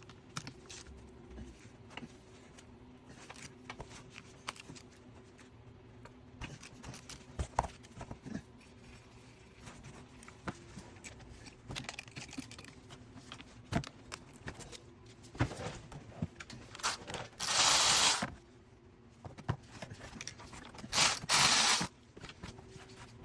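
Hand tools and metal parts of a power steering pump clicking, knocking and scraping during a teardown, over a faint steady hum. Near the end come two loud hissing bursts, about a second each.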